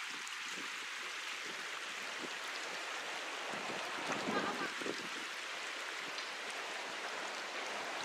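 Shallow river flowing over a stony bed: a steady rushing of water, with a few brief duller sounds about four seconds in.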